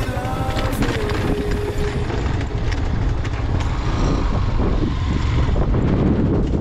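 Motorcycle riding over a loose, stony gravel track: a steady engine and road rumble, with the crunch and rattle of tyres on stones.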